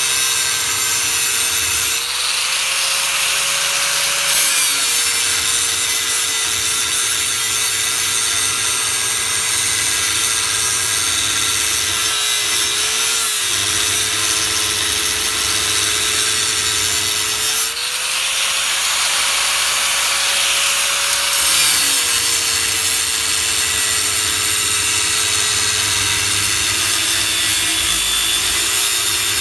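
Electric power tool working steel, its motor running continuously with a steady whine that rises in pitch twice, about 2 seconds and about 18 seconds in, for a few seconds each time.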